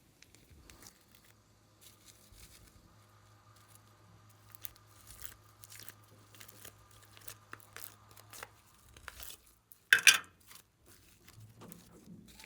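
Glossy slime being kneaded and stretched by hand, with many small sticky clicks and crackles and one much louder burst about ten seconds in.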